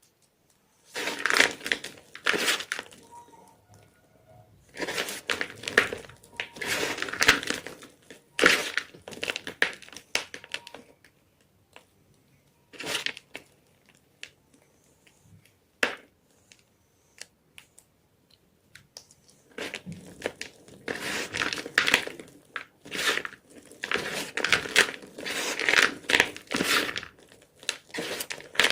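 Gym chalk crunching and crumbling as it is crushed, in spells of dense crackling with short pauses and a few single snaps between them, the longest spell starting about two-thirds of the way in.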